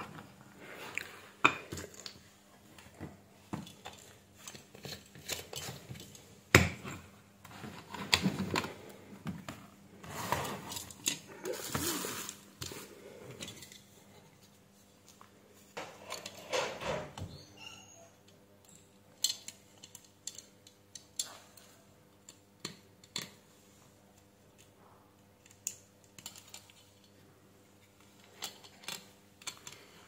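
Small tools and parts being handled on a workbench: scattered clicks, taps and light metallic clatter, busiest in the first half. Tweezers and other small items are being picked up and set down. A faint steady hum runs under the sparser clicks of the second half.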